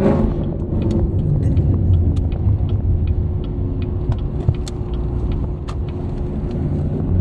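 Chevrolet Camaro SS 1LE's 6.2-litre V8 running steadily, a deep drone heard from inside the cabin, with a few faint clicks.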